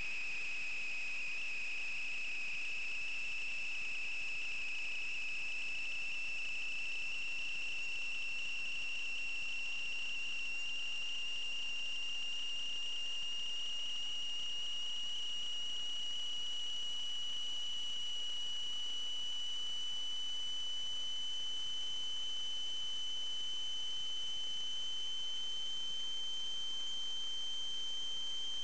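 A steady, high-pitched electronic whine whose pitch creeps slowly upward, with a fainter higher tone above it. It sounds like electrical interference picked up in the sewer camera's recording.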